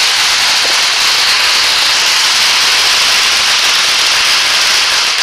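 Ground firework fountain spraying sparks with a loud, steady hiss.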